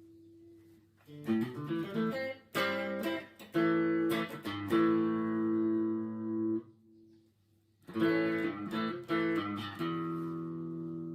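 Electric guitar played through a reverb effect. A quick run of picked notes starts about a second in and leads into chords that ring out with long tails, then stops short. After a brief pause a second phrase ends on a chord left to sustain.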